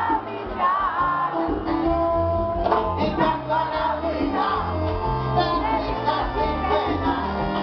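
Live salsa band: a male lead singer sings into a microphone over keyboard and congas, with the band playing steadily underneath.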